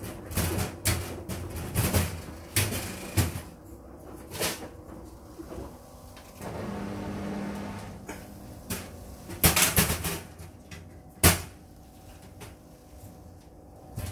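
Automatic self-cleaning cat litter box turning its drum: a run of clicks and knocks from the mechanism and shifting tofu litter, a steady motor hum partway through, and a few loud sharp clacks in the second half.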